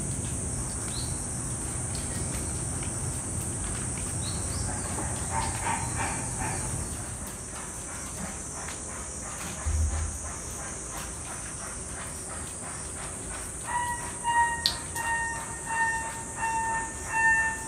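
Outdoor ambience with a steady high-pitched drone and low rumble. About three-quarters of the way through, a clear ringing tone starts repeating about one and a half times a second.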